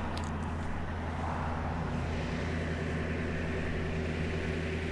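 Tow truck engine running at a raised, steady idle with the PTO engaged for the bed hydraulics.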